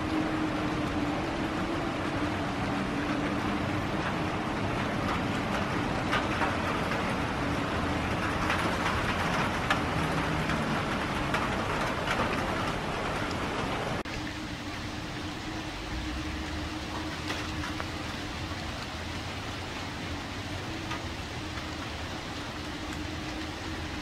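Steady outdoor background noise: a continuous hiss with a faint low hum under it, dropping a little quieter about two-thirds of the way through.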